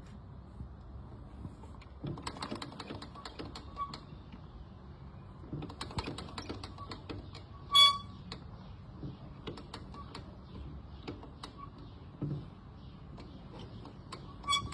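Metal-on-metal clicks and clinks of work on a scooter's drum brake, with one loud ringing metallic clang about eight seconds in and another sharp knock near the end.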